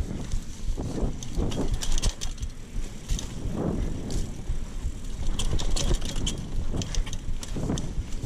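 Mountain bike riding over a rough dirt trail: a steady low rumble from the tyres and frame, with many short clicks and rattles from the bike scattered throughout.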